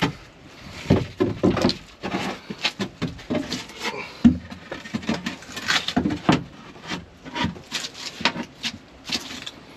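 Irregular knocks, taps and scraping from a fibreglassed board being worked down into a boat's floor hatch and pressed onto filler by gloved hands, with one louder thump about four seconds in.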